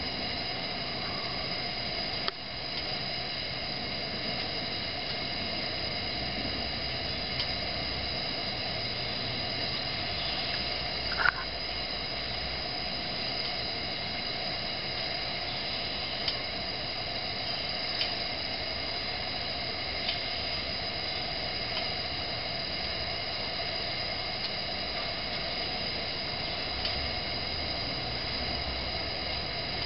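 1951 Coleman 228E pressurized two-mantle gasoline lantern burning with a steady hiss. A few light clicks come through, the loudest a short sharp one about eleven seconds in.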